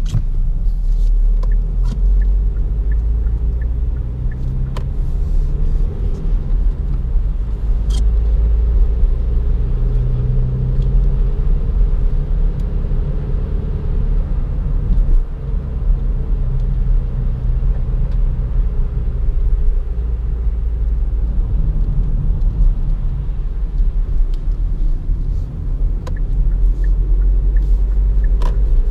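In-cabin sound of a Kia Optima SW's 1.7 CRDi turbodiesel four-cylinder under way: a steady low engine and road rumble, with the engine note slowly rising and falling with the throttle. A light, regular ticking of the turn signal comes near the start and again near the end.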